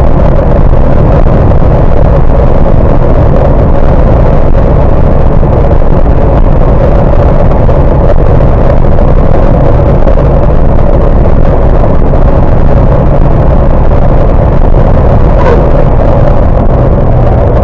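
Steady engine and road drone heard from inside a vehicle's cab cruising at highway speed: a loud low rumble with a constant mid-pitched hum over it.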